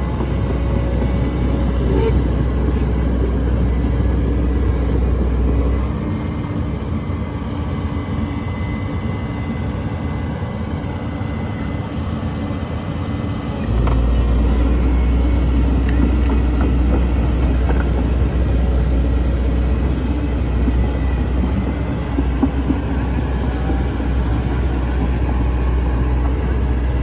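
Heavy diesel engine of an excavator running under load, a steady deep rumble. The lowest part of the rumble eases off for several seconds in the middle, then comes back.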